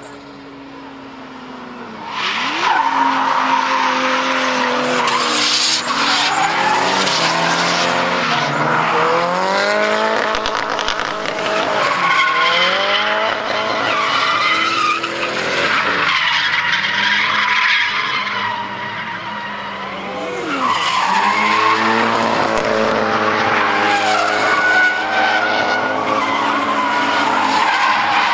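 Drift cars' engines revving hard, the pitch climbing and dropping again and again as they slide sideways through a corner, with tyres skidding and squealing. It starts faint, turns loud about two seconds in, and eases briefly about two-thirds of the way through.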